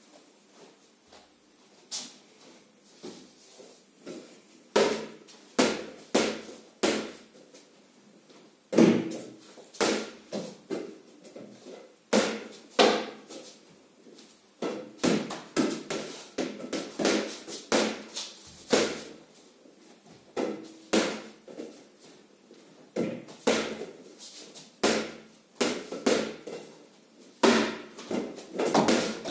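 A basketball being shot at a portable hoop, thudding off the backboard and rim and bouncing on a hard floor. The impacts come in runs of quick bounces that die away, again and again.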